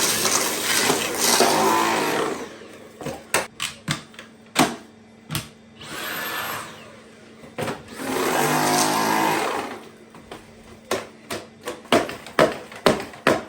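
Dyson V8 cordless stick vacuum running in short bursts: one at the start, a brief one in the middle and a longer one after it. Sharp clicks and knocks come between the bursts.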